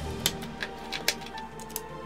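Light background music with steady sustained notes, with a few sharp clicks of plastic LEGO bricks being snapped together, the loudest about a second in.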